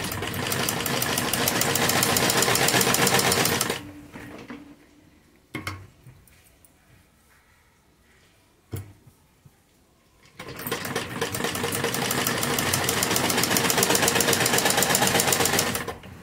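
Sewing machine stitching fabric with a fast, even rhythm in two runs of several seconds each, separated by a pause of about six seconds that holds a couple of short clicks.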